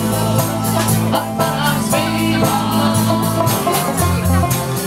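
Live acoustic folk-country band playing an instrumental passage: strummed acoustic guitars, banjo and upright double bass over an even beat.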